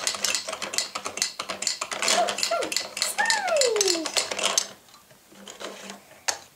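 Plastic toy horse figures with riders clattering and clicking quickly as they roll down the plastic ramps of a toy stable playset; the rapid clicking stops about four and a half seconds in, leaving only a few scattered clicks.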